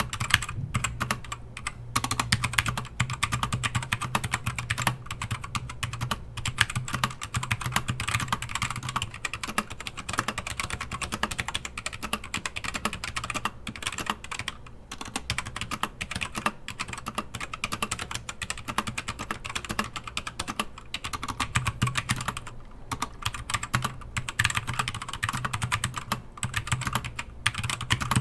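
Fast typing on a Keychron K4 mechanical keyboard with LK optical box switches and rubber O-rings fitted under the letter keycaps: a dense, steady stream of keystroke clacks with a few brief pauses. The keys still bottom out, as the thin O-rings do not touch the top of the switches.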